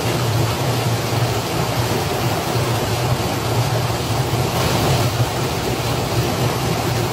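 River water rushing over a concrete weir: a loud, steady, unbroken rushing noise.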